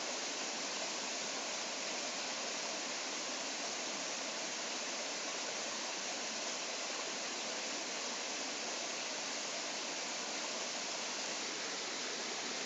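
Rushing stream running over rocks: a steady, even rush of water.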